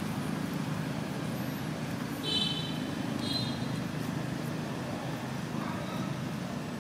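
Steady low rumble of road traffic in the background, with two short high squeaks about two and three seconds in.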